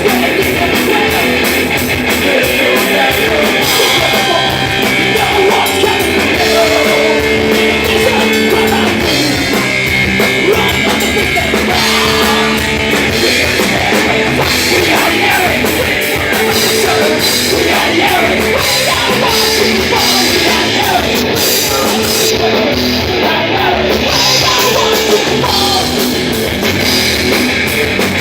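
Live rock band playing loud, with drum kit and electric guitars.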